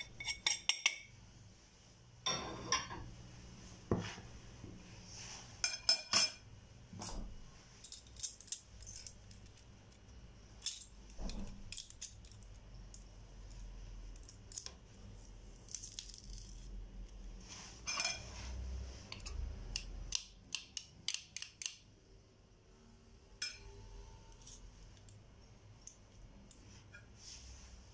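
Scattered clinks and taps of kitchenware on a ceramic baking dish: a plate and a metal spoon knocking against the dish as spices are tipped in. There are short clusters of clicks, with a metal garlic press working over the dish near the end.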